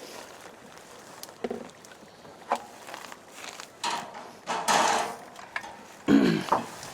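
Scattered knocks and scrapes of wooden boards being handled and moved, with a louder scraping slide a little past the middle.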